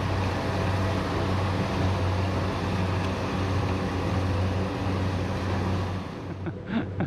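Kubota combine harvester's diesel engine running steadily as the tracked machine manoeuvres, a constant low hum with mechanical noise over it, easing off about six seconds in.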